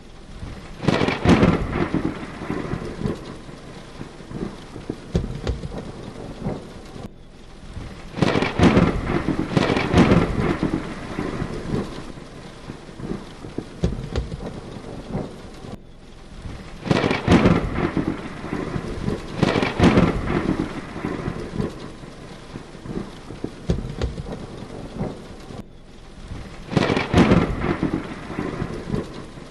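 Heavy rain pouring steadily, with thunder cracks and rumbles breaking out four times, roughly every eight or nine seconds. The sound drops out for an instant three times between the thunder.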